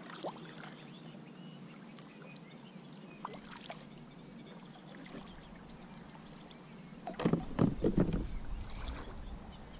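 Kayak paddle strokes: water splashing and dripping off the blade with small clicks, louder for a couple of seconds near the end.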